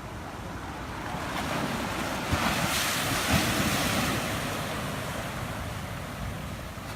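Rough storm surf: a wave breaks and washes in, swelling to a peak about halfway through and then fading, with wind buffeting the microphone.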